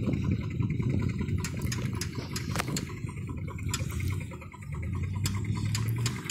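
Old tractor and steam engines running: a low, rough rumble with scattered sharp ticks, settling into a steadier engine hum near the end.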